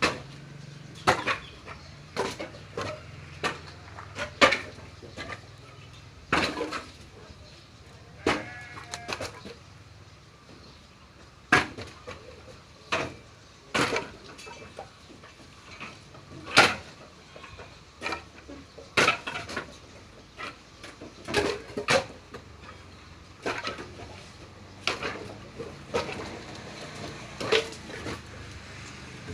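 Timber being unloaded by hand and thrown down one piece after another: a sharp wooden clack roughly every second, at an uneven pace.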